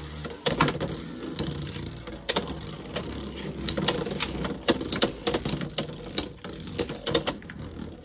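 Two Beyblade X spinning tops whirring across a clear plastic stadium floor, with irregular sharp clicks and clacks several times a second as they knock against each other and the stadium's toothed rail. The low whirr is strongest in the first two seconds, after the launch.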